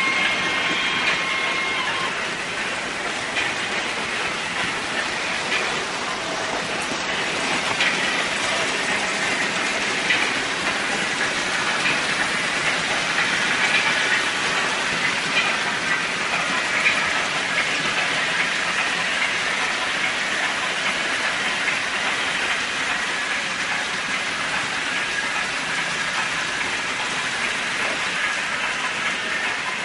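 Märklin HO model trains running on metal track: a steady rolling clatter of small wheels over rails and joints. A steady high tone is heard in the first two seconds and then stops.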